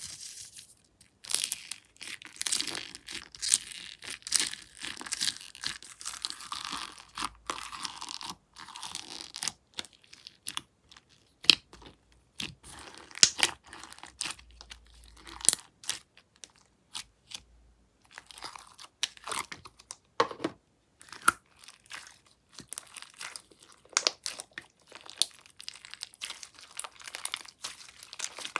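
Slime being squeezed and pressed by hand, giving dense, irregular crackling and crunching with many small sharp pops and a few brief pauses.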